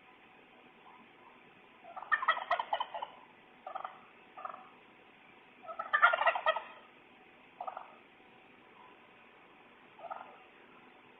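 Animal calls through a doorbell camera's microphone: two loud, rapidly fluttering calls about a second long, about two and six seconds in, with a few short single calls between them and one near the end.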